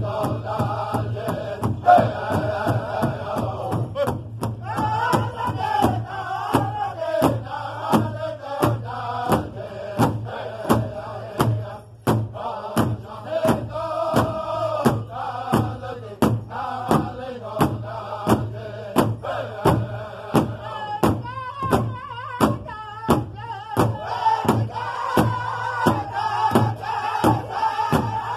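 A powwow drum group singing together in unison while striking a big shared drum with padded sticks, a steady beat of about two strokes a second.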